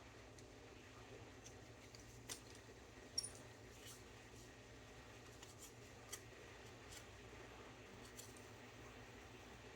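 Near-quiet room tone with a handful of faint, sharp clicks and ticks from hand work on a small plastic model-kit part, the loudest a little past three seconds in.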